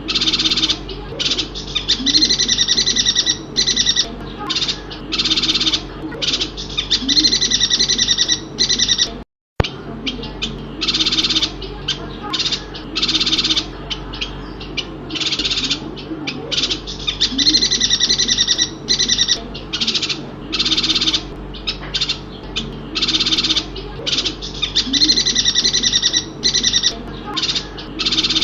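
Chestnut-crested yuhinas from Borneo singing: bursts of high, twittering chatter repeated every second or two, over softer low calls. The song cuts out briefly about nine seconds in.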